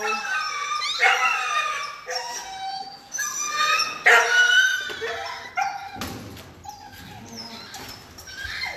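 Small dog giving a run of high-pitched yips and whining barks, roughly one a second, growing fainter in the last few seconds.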